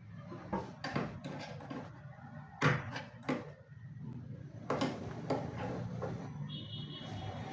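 Knocks and clicks of a wooden cabinet door being handled and moved on its hinges during adjustment, the loudest knock about a third of the way in. A brief high-pitched tone sounds near the end.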